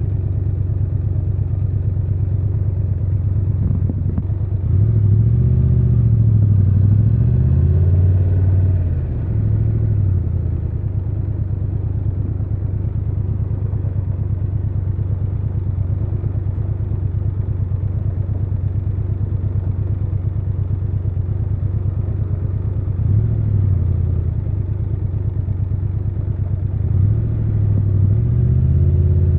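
Triumph Tiger 1200 Rally Pro's three-cylinder engine running. Its pitch rises and falls a few times between about five and ten seconds in, holds steady through the middle, then rises and falls again near the end.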